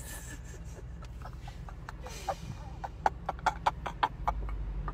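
A woman's stifled laughter: short muffled bursts through the hand over her mouth, a few a second, over the steady low rumble of wind and road noise in an open-top car.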